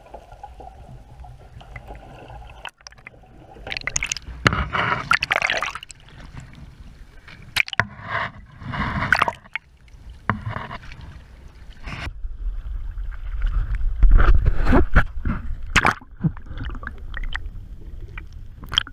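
Water splashing and gurgling against a boat's side as a hooked fish is brought up at the surface, with repeated sharp knocks. The sound breaks off abruptly a few times.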